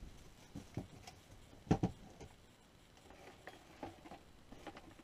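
Plastic cling wrap crinkling and rustling as it is pressed around a raw turkey breast, in scattered short crackles with a louder double click a little under two seconds in.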